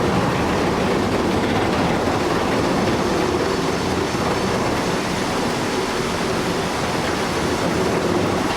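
Heavy machinery running: a steady, loud mechanical rumble and clatter, like a big tracked machine on the move.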